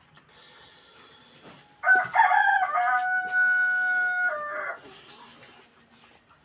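A rooster crowing once, about two seconds in, for nearly three seconds: a rough start, a long held note, then a drop at the end.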